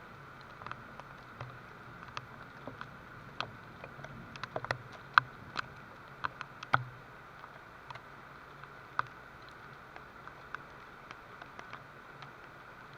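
Light rain: scattered drops tapping irregularly on a hard surface over a steady hiss, thicker in the first half and sparser toward the end.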